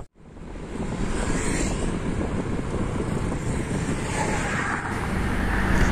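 Wind buffeting the microphone outdoors, a steady low rumbling rush that rises in after a brief gap about half a second in, with road traffic noise beneath it.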